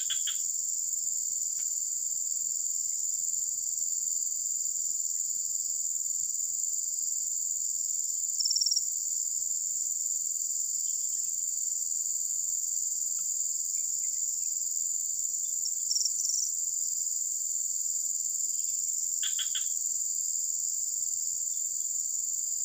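A steady high-pitched chorus of insects chirring, with a brief louder call about a third of the way in and another about two-thirds in. A few faint short rustles are heard near the start and near the end.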